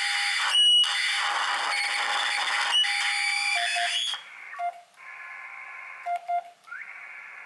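Ham radio receiver audio from a faulty Pixie 40-meter CW transmitter kit being keyed: loud hiss with several steady whistling tones. About four seconds in it drops to a quieter hiss with a few short Morse tone blips.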